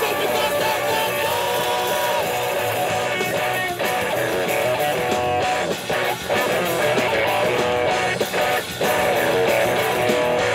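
A live rock band plays with two electric guitars strumming over a drum kit.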